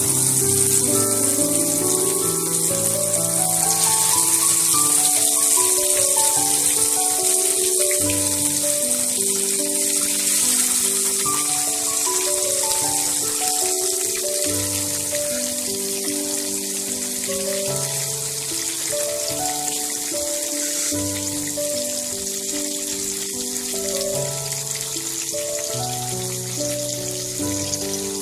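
Background music with a slow melody of held notes, over the steady sizzle of whole climbing fish frying in hot oil.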